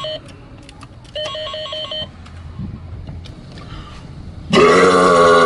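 A telephone rings in short trilling electronic rings: the end of one ring, then one more. About four and a half seconds in comes a long, loud, deliberate burp, the loudest sound here.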